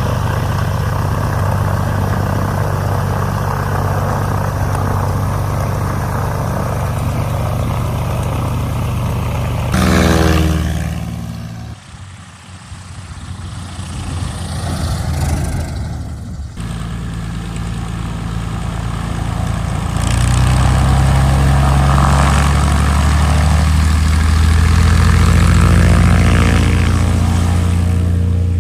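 1964 Piper PA-25-235 Pawnee's six-cylinder Lycoming O-540 engine and propeller running steadily. About ten seconds in the sound surges briefly, then falls away with a dropping tone. It returns and is louder and steadier from about twenty seconds in.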